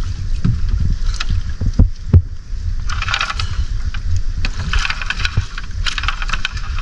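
Water splashing and lapping against an outrigger boat's hull as a wet fishing net is hauled aboard, with a few sharp knocks in the first couple of seconds and a low rumble of wind on the microphone.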